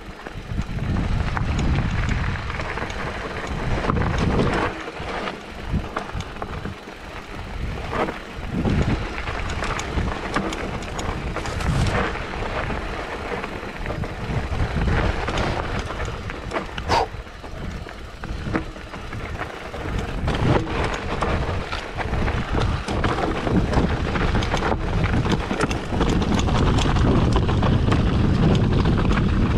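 Mountain bike rolling fast down a steep, loose, rocky trail: tyres crunching over stones and the bike rattling with scattered knocks, under heavy wind rush on the microphone that grows louder over the last few seconds.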